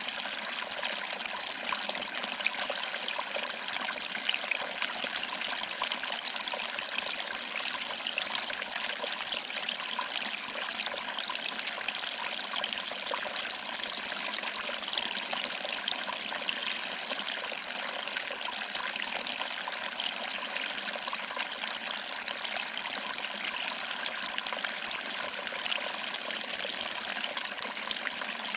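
Small waterfall trickling over rocks and splashing into a pool: a steady, even rush of water with fine splashing detail and no change in level.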